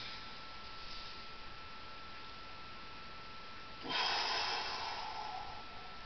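A man's single long, forceful breath out through pursed lips about four seconds in, fading over about two seconds: exertion breathing during a dynamic tension exercise.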